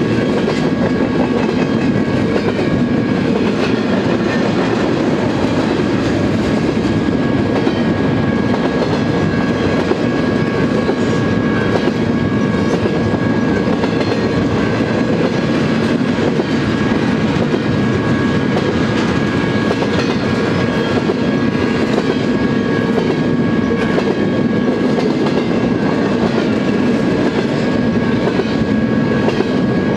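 Double-stack intermodal freight train cars rolling steadily past at a grade crossing, a loud, even rumble with a thin steady high tone over it.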